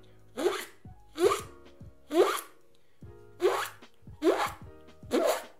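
Beatboxed zipper sound: air is sucked in through the middle of the lips with rising tension, so each stroke sweeps upward in pitch like a zipper being pulled. It comes six times in quick succession, with a short pause in the middle.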